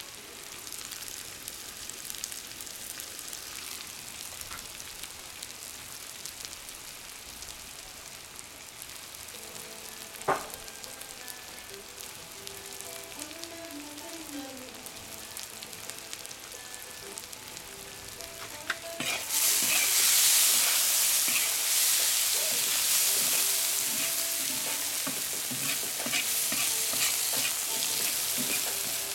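Meat and julienned carrots sizzling in hot oil in a cast-iron kazan, at the meat-and-carrot frying stage of plov. About two-thirds of the way through, the sizzle jumps much louder as the food is stirred around the pan. A single sharp knock is heard about ten seconds in.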